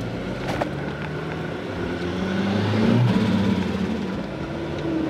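Turbocharged Mazda G6 four-cylinder engine of a Mazda Bravo ute, heard from inside the cab while driving. The engine note climbs to its loudest about three seconds in, then eases off. There is a short click about half a second in.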